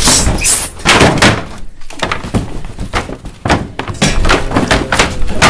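Foley impact sounds: an irregular run of heavy thuds, knocks and bangs, with a short lull just before two seconds in and a denser flurry over the last second or so.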